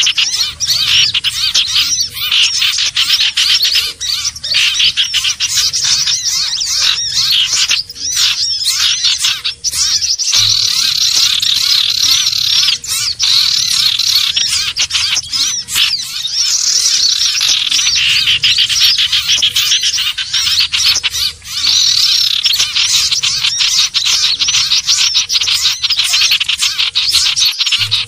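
Lure recording of sirtu (cipoh) birds calling: dense, continuous high chirping and rapid trills, with brief pauses about ten and twenty-one seconds in.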